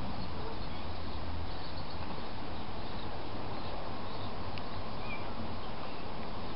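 Steady outdoor background hiss with a low hum, broken by a couple of faint, short high chirps and a single light click.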